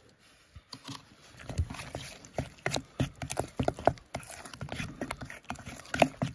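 Metal spoon stirring a thick yogurt and spice marinade in a stainless steel bowl: quick, irregular clinks and scrapes of the spoon against the bowl, starting just under a second in.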